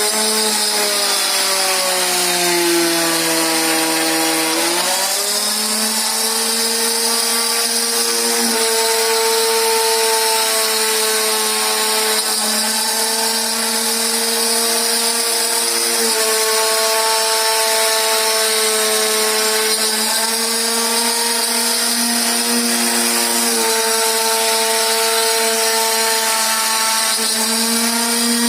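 Home-built wooden-frame CNC machine running a test, its stepper motors whining in steady tones. The pitch glides down over the first few seconds, then jumps between a few set pitches every few seconds as the moves change, over a constant high-pitched whine.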